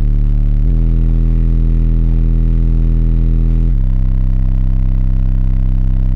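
Very loud, sustained deep bass notes from a car's two Direct Sound Solutions Ethos 12-inch subwoofers, heard inside the car. The bass holds steady tones that change pitch twice, about a second in and again near the middle.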